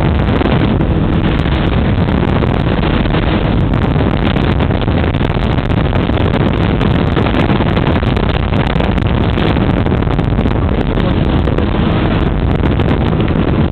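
Ultralight trike's engine and propeller running steadily in flight, under heavy wind rush on the microphone.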